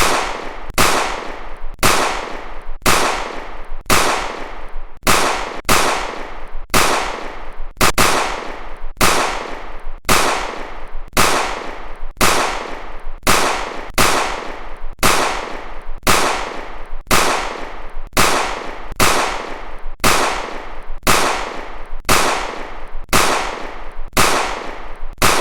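Pistol gunshot sound effect repeating steadily about once a second, each sharp shot trailing off in a short fading tail before the next.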